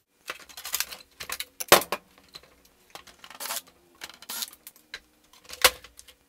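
Metallic clatter and knocks of a steel computer tower case and its parts being handled on a workbench, with two louder clanks, about two seconds in and near the end.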